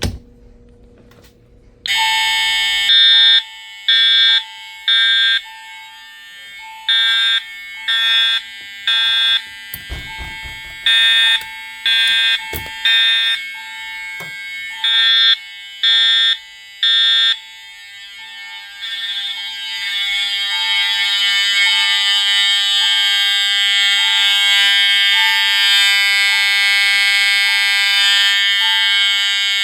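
EST Pre-Integrity fire alarm horns and an EST chime sound about two seconds in. The horns blast in the temporal-3 evacuation pattern, three short blasts then a pause, over an electronic chime repeating about once a second. About eighteen seconds in, the horns change to a steady continuous tone while the chime keeps going.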